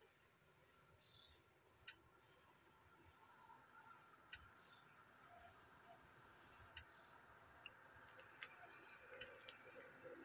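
Forest insects keeping up a steady, high-pitched shrill chorus, slightly pulsing, with a faint sharp click about every two and a half seconds.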